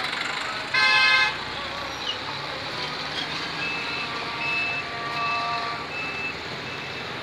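Road traffic passing close by. A vehicle horn sounds once, briefly, about a second in, the loudest sound. From about halfway a short high electronic beep repeats about twice a second over the traffic.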